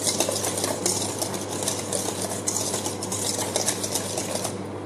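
A metal utensil scraping and clinking against a stainless steel mixing bowl. It is stirring a wet sauce of mayonnaise, ketchup and oil in quick, continuous strokes.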